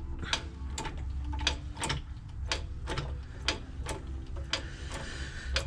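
Lifting jack being worked to raise a clutch pressure plate assembly into place: sharp, uneven mechanical clicks about two a second over a steady low hum.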